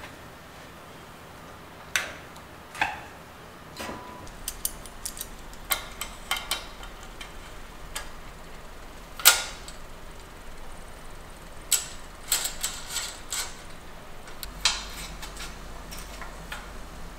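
Irregular sharp metal clicks and taps of small bicycle parts and hand tools being handled, as bolt-on dropout plates are fitted to a bike frame and their bolts turned with a hex screwdriver. One click about nine seconds in is the loudest.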